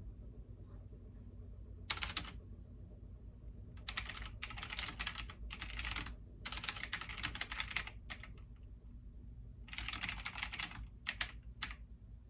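Computer keyboard typing in several short bursts of rapid keystrokes with pauses between them, over a low steady hum.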